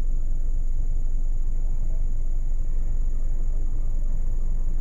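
Steady low rumble, unchanging in level, with a thin, steady high-pitched whine above it.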